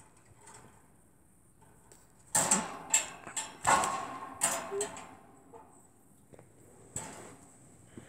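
Budgies scuffling at a hanging cage mirror: a burst of clattering knocks and rustling about two seconds in that lasts some three seconds, then a single sharp click near the end.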